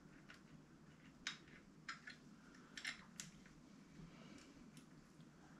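Near silence with a handful of faint, sharp little clicks, most of them between about one and three and a half seconds in.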